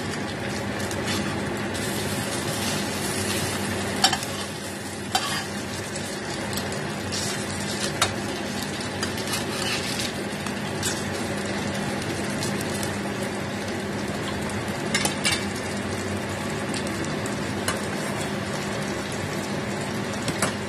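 Food sizzling as it fries in oil in a stainless steel pan, with a metal spatula scraping and tapping against the pan now and then, over a steady low hum.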